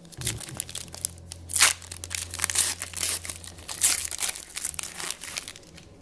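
Wrapper of a football trading-card pack crinkling and tearing as it is opened, a run of sharp rustles that are loudest about a second and a half in and again about four seconds in.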